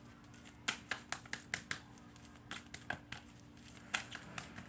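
Tarot cards being shuffled and handled: a run of irregular light snaps and clicks as the cards slap and riffle together.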